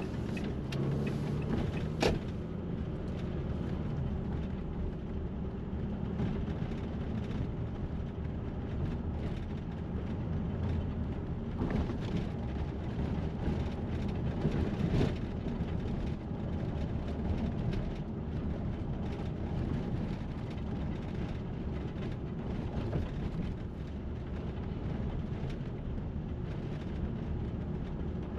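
City street traffic: a steady rumble of passing vehicles, with a single sharp knock about two seconds in.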